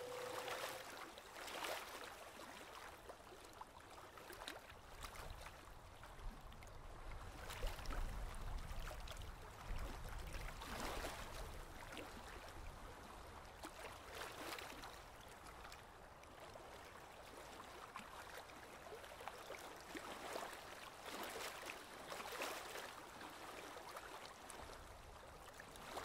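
Small paintbrush stroking paint over an oil-pastel painting on paper: faint, soft swishes and scratches at irregular intervals.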